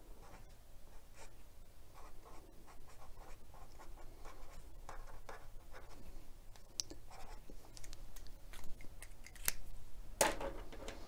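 Felt-tip marker writing on a paper sticky note: a run of short, irregular scratching strokes, with a brief louder scrape about ten seconds in.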